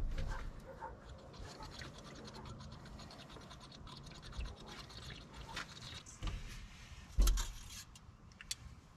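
Motor oil pouring from a plastic jug into an engine's oil filler opening, with small clicks and scrapes of the jug. A knock about seven seconds in.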